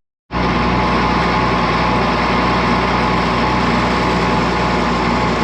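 Tractor engine running steadily under field load, a constant drone with machinery noise. It begins abruptly just after a brief dropout.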